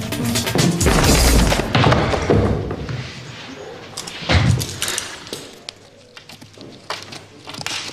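Scuffle sound effects: a dense rush of crashing noise, then a heavy thud about four seconds in, with music underneath.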